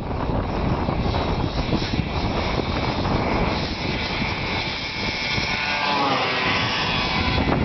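1978 Ski-Doo Blizzard 6500 Plus snowmobile's two-stroke engine running hard at speed, its pitch climbing in the last couple of seconds.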